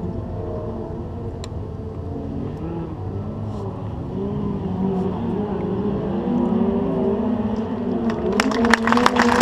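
Long, wavering held notes, growing louder, then clapping breaks out near the end.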